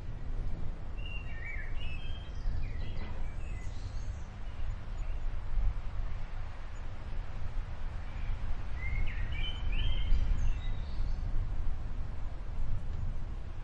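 Low, steady rumble of an approaching thunderstorm, with birds chirping in two short spells, a few seconds apart.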